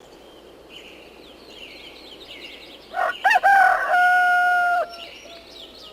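A rooster crowing once about three seconds in: a few short notes, then a long held note that drops away at the end. Small birds chirp faintly throughout.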